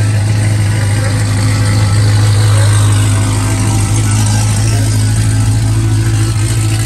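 C7 Corvette's V8 idling with a steady low drone while the car creeps forward, swelling slightly about two seconds in.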